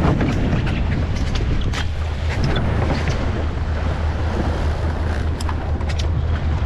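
Fishing boat's engine running steadily at sea, with wind buffeting the microphone and water washing around the hull.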